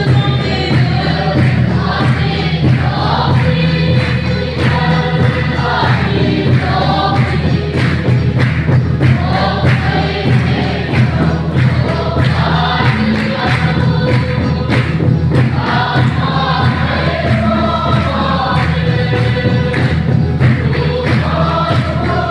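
A group of voices singing a gospel hymn together, with a steady percussion beat throughout.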